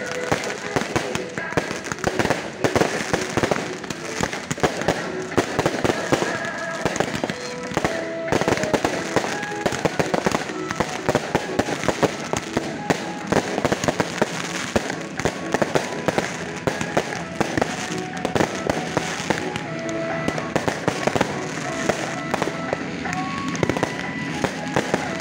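Fireworks going off in a dense, continuous barrage of sharp cracks and bangs, as ground fountains and small aerial shells fire one after another, with music playing underneath.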